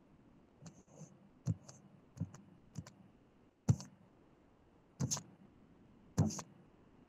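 About ten sharp, separate clicks at a computer, irregularly spaced, some in quick pairs, the loudest about four, five and six seconds in.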